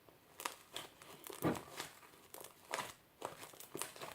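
Sticky fluffy slime of glue and foam being squeezed and pulled in the hands, giving irregular crackly, tearing squelches. The slime is still sticky and clings to the hands, short of activator.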